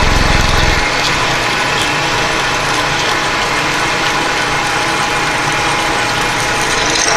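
Drill bit boring a 1/2 inch hole through half-inch aluminum plate, with the machine's geared spindle running steadily. A heavier low rumble stops about a second in.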